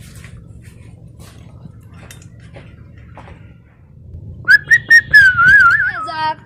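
Faint background noise with a few soft ticks. About four and a half seconds in, a loud whistle sounds, wavering up and down in pitch, with sharp clicks as it starts. Near the end it steps down in pitch.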